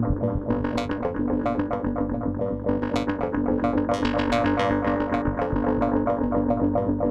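Arturia MicroFreak hybrid synthesizer playing a quick run of short, plucked notes over a held lower tone, fed through a Behringer VD-400 analog delay pedal that adds repeating echoes.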